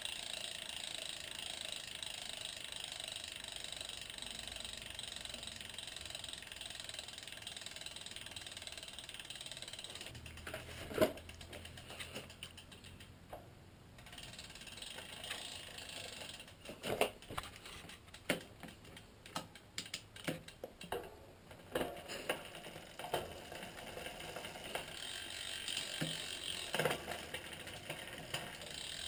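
Freehub ratchet of a DT Swiss R1850 wheel buzzing steadily as the wheel spins freely. About ten seconds in, the buzz gives way to uneven clicks and knocks, with one louder knock just after. The steady buzz comes back near the end.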